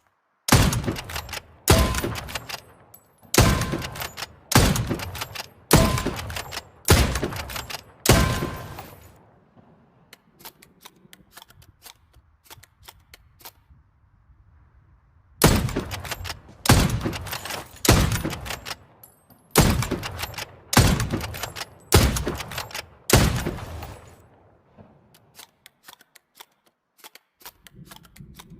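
Hunting rifle shots, seven sharp cracks a little over a second apart, each with a short echoing tail, then after a pause another seven at the same pace. A few faint clicks follow near the end.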